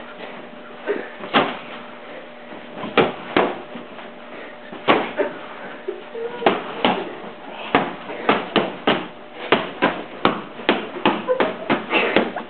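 Boxing-glove punches landing on gloves, a series of sharp smacks: a few spaced a second or so apart, then a quick flurry of several a second near the end.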